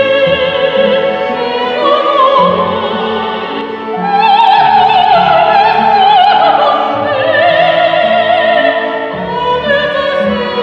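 Lyric-dramatic soprano singing an operatic line with wide vibrato and long held notes, accompanied by a chamber string orchestra.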